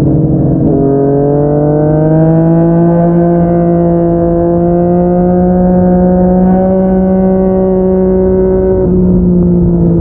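Yamaha MT-09's inline-three engine through a Yoshimura R55 slip-on exhaust, pulling under throttle on the uphill ride. Its pitch shifts about a second in, climbs slowly and holds steady, then drops near the end.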